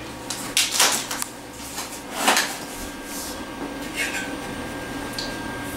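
Handling noise from a sheet-metal shelf end panel being lifted out and handled: a few separate light metallic clanks and scrapes, the strongest a little past two seconds in.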